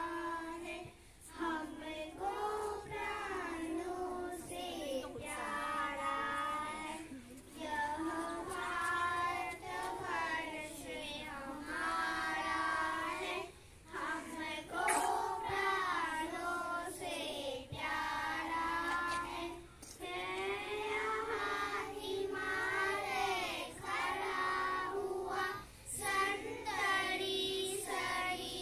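A group of young children singing a song together, in phrases of a few seconds with short breaks for breath between them.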